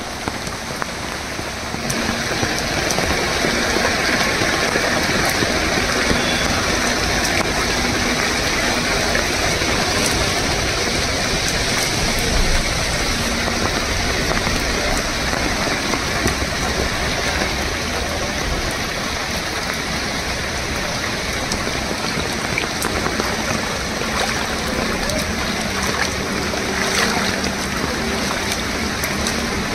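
Steady rushing noise of torrential rain and swollen, fast-flowing floodwater, growing louder about two seconds in.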